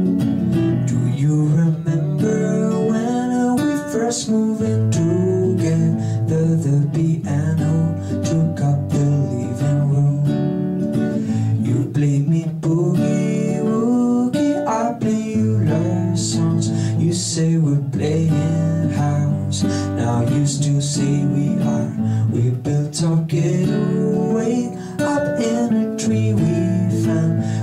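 Background music: a song led by strummed acoustic guitar, playing steadily.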